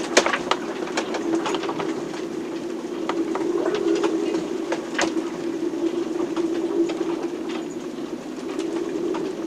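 Sailboat in a storm heard from inside the cabin: a steady low drone, with sharp clicks and knocks from the boat at irregular moments, the strongest just after the start and about five seconds in.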